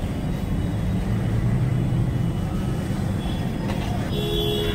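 Steady low rumble of roadside traffic, swelling slightly in the middle, with a brief tone near the end.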